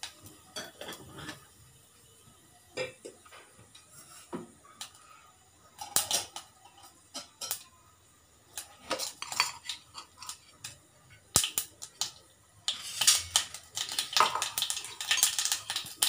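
Mustard and cumin seeds popping in hot oil in an aluminium pressure cooker, the tempering stage, with sharp ticks as seeds hit the metal sides. The pops are scattered at first and turn into dense spluttering for the last few seconds.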